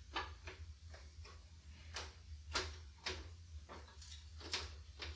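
Irregular light clicks and taps, about two a second, of parts inside an opened compact Macintosh being handled; the sharpest come about two and a half seconds in and again near the end.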